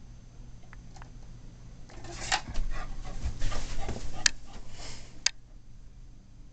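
Shar Pei dog making excited, breathy noises, in a burst from about two seconds in to about five, with two sharp clicks near the end of it.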